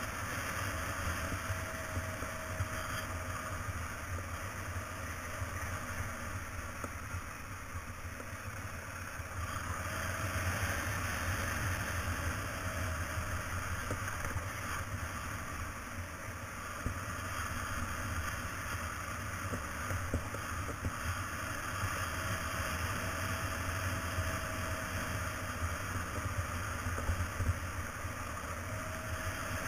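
Motorcycle running steadily while riding over a gravel road, with a low engine rumble under a broad rush of wind and road noise.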